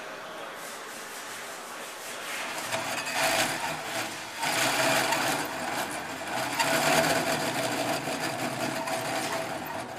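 Power drill turning a hole saw through a metal panel: a continuous cutting noise with a steady whine, which grows louder about two and a half seconds in, eases for a moment just after four seconds, then carries on.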